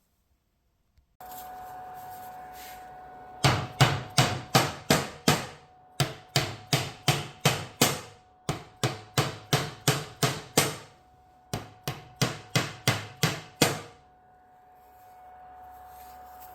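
Hammer driving wooden dowels into holes, struck in four quick runs of sharp blows, about three a second, with short pauses between runs. A faint steady hum with a single tone runs underneath.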